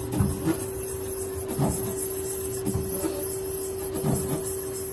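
Kia SKT-15 CNC lathe powered up and idling, giving a steady hum with a constant high whine over it. Several short knocks come and go over the hum.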